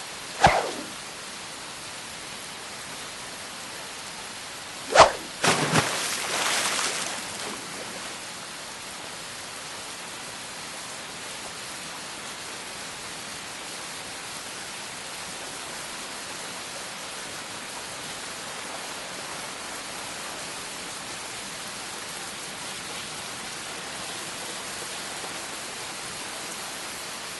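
Animated-episode sound effects: a steady, even hiss like rain, broken by a sharp hit just after the start and another hit about five seconds in, followed by a couple of seconds of clattering.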